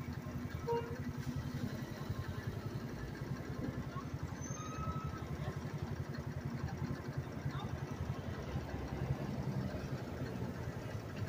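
Small single-cylinder engine of a Phatmoto motorized bicycle idling steadily while the bike stands still, a rapid, even low putter.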